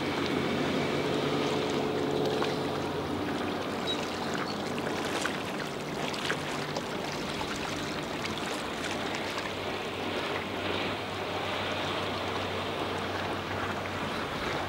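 A Mariah SC21 cuddy boat's engine running at speed across the water, a steady drone that is louder for the first few seconds, over the rushing of its wake and wind.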